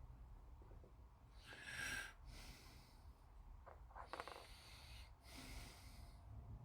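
Near silence with a man's breathing close to the microphone: a few breaths through the nose, one every second or two.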